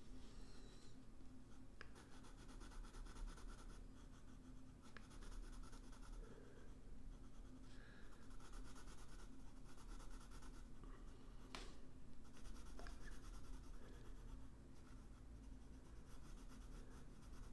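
Faint scratching of a blue colored pencil on paper in short, irregular sketching strokes, with an occasional sharper tick of the lead against the page.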